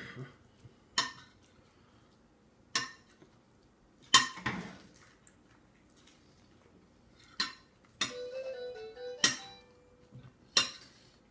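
A spoon clinking against a baby's feeding bowl as she eats: about seven sharp, separate clinks, spread a second or more apart.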